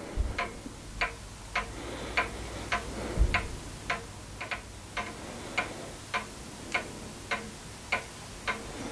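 Steady, regular ticking, a little under two sharp ticks a second, with two dull low thumps, one near the start and one about three seconds in.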